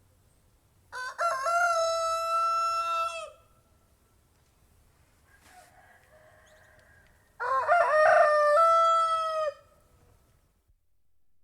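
Rooster (domestic chicken) crowing twice, each a long cock-a-doodle-doo of about two to three seconds ending in a held note; a much fainter, shorter call sounds between the two crows.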